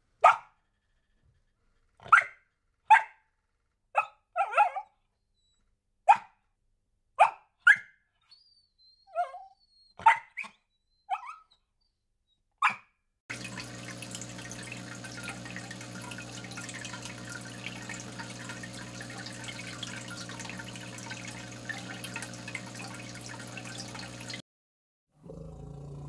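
A young puppy yapping: about a dozen short, sharp barks at uneven gaps over the first half. Then a steady low hum with a hiss of moving water, like an aquarium pump and filter, until it cuts off shortly before the end.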